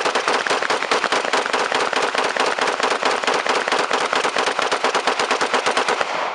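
Rapid gunfire in one unbroken string of many shots a second, stopping near the end with the echo fading away.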